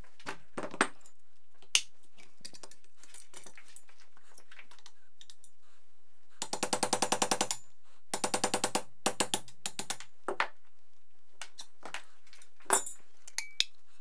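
A hammer tapping a steel pin punch against the gun's metal parts to drive out a pin, in two quick runs of light, rapid strikes about ten a second. Single metallic clicks and clacks from parts being handled and set down.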